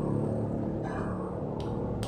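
A motor vehicle engine rumbling low and fading just after the start, with one faint click about one and a half seconds in.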